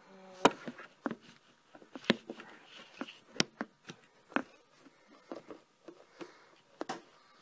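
Handling noise from a phone being set up and propped in place: irregular knocks, taps and rubbing as it is moved and repositioned, about a second or more apart.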